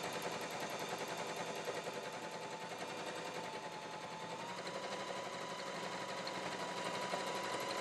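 Janome HD5000 heavy-duty sewing machine stitching steadily through a single layer of cotton, with a rapid, even run of needle strokes.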